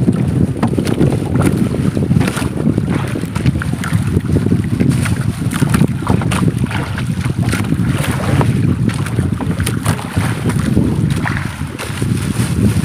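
Strong wind buffeting the microphone over choppy sea, with water slapping the wooden outrigger boat and many short splashes and knocks as a gill net is hauled aboard by hand.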